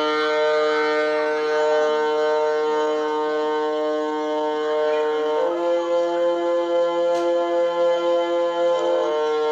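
Instrumental music of long held chords. The chord changes about halfway through and again near the end, and the volume wavers just before the last change.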